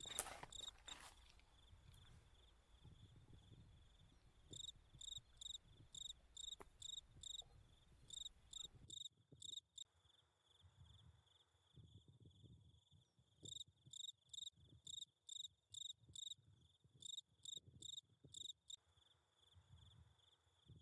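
Faint insect chirping: short high chirps repeated about two or three times a second, in two long runs.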